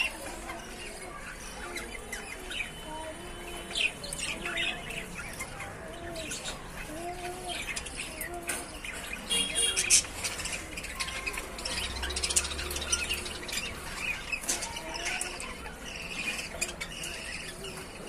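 A pair of show budgerigars chattering, with many short sharp chirps and squawks.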